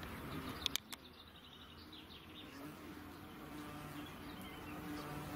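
A bumblebee buzzing steadily close by from about halfway through, with short bird chirps just before. A couple of sharp clicks a little under a second in are the loudest sounds.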